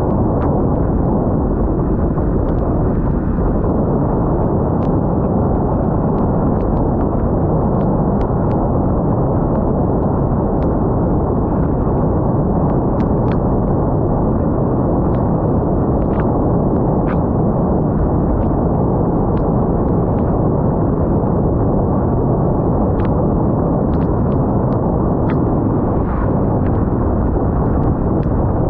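Rain and wind on a GoPro Hero 9 camera: a loud, steady, muffled rumble of wind buffeting the microphone, with many scattered sharp ticks of raindrops striking the camera.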